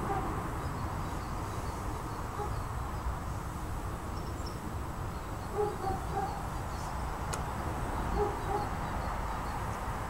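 Steady low outdoor background rumble, with short hooting calls coming in small groups three times, near the start, about six seconds in and about eight seconds in, and a single sharp click about seven seconds in.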